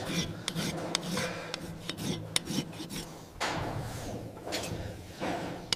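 A hoof rasp scraping across a cow's hoof wall in repeated strokes, with small clicks and ticks. There are two longer scrapes in the second half.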